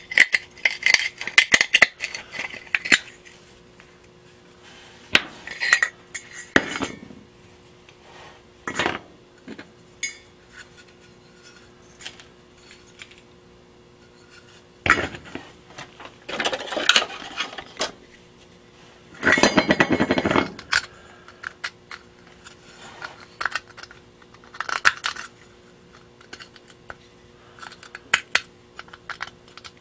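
Corroded brass lamp parts handled and worked apart by hand: scattered metal clinks, taps and short scrapes, with a longer rasping scrape about two-thirds of the way through.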